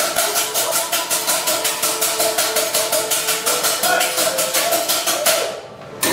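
Rapid, even percussive beat, about seven strikes a second, over a held tone. It breaks off about five seconds in, and a single sharp hit comes right at the end.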